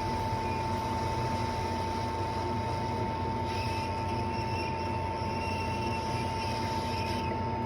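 A small electric fan or blower motor running steadily with a constant whine and hum. A second, higher hiss joins about three and a half seconds in and cuts off near the end.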